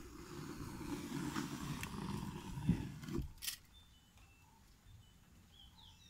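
Handling noise: low rubbing and rumbling with several sharp clicks and knocks, the loudest a little before halfway. After that it dies down to a faint background with a few short, faint high tones.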